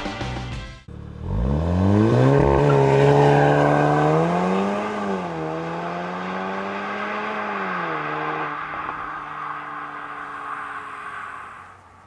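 Volkswagen T-Roc R's 2.0-litre turbocharged four-cylinder accelerating hard as the car pulls away. Revs climb with the gearbox shifting up twice, about five and eight seconds in, and the engine fades as the car drives off.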